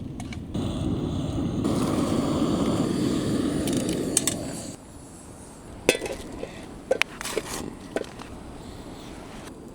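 A steady rushing noise for about the first five seconds, which stops abruptly. After it come a handful of light clinks and knocks of camp cups and utensils during a coffee break.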